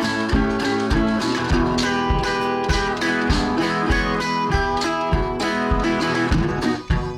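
Background music: an acoustic guitar tune in a country style, with a steady beat.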